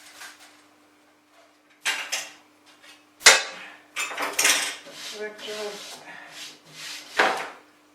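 Hard metal items clattering as they are handled and set down, with sharp knocks about two, three, four and seven seconds in, over a faint steady hum.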